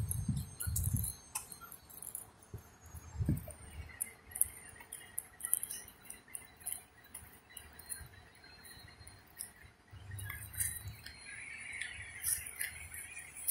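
Footsteps and phone-handling thumps on wet pavement, with scattered small metallic clinks throughout. A vehicle rumbles past near the end.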